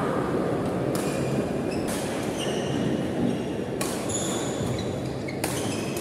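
A badminton rally: several sharp racket-on-shuttlecock hits, a second or more apart, with short squeaks of court shoes on the wooden floor, over a steady murmur of the sports hall.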